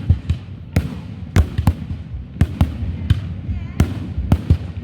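Aerial fireworks display: an irregular, rapid series of sharp bangs from shells bursting, about a dozen in under five seconds, over a low rumble.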